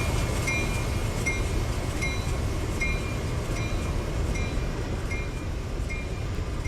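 A passing train: a steady heavy rumble. A bright, bell-like ding repeats about every three-quarters of a second over it.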